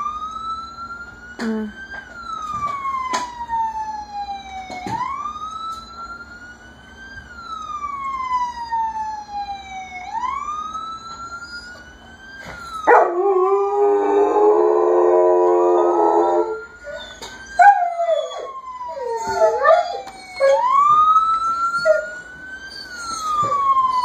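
A recorded police siren played back, wailing up and down about every five seconds. About halfway through, a German shepherd howls loudly for a few seconds over it, and wavering dog cries mix with the siren for a few more seconds before the wail carries on alone.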